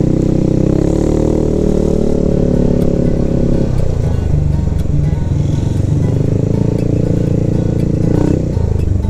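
Yamaha maxi-scooter's engine running on the move, its note climbing slowly, then dropping suddenly a little under four seconds in, climbing again and dropping once more near the end.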